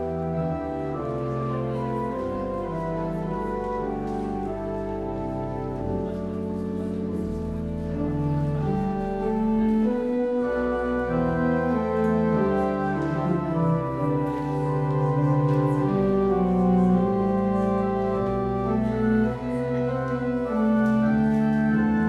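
Organ playing a slow hymn prelude in sustained, layered chords that change one after another, swelling somewhat louder about eight seconds in.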